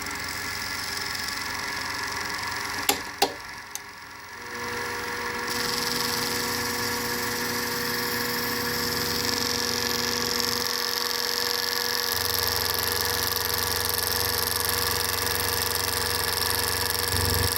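LMS 3900 HiTorque mini mill running with a steady motor hum. A few sharp clicks come about three seconds in, the level dips briefly, and the mill then settles back into a steady hum with a clear whining tone as it works on the acrylic.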